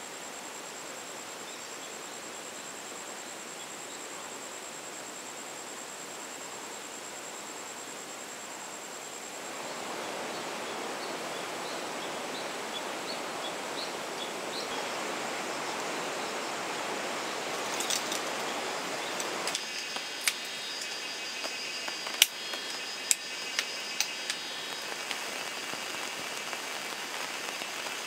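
Steady rush of a river flowing, swelling louder about a third of the way in. After an abrupt change about two-thirds in, rain begins, with sharp taps of raindrops striking close by.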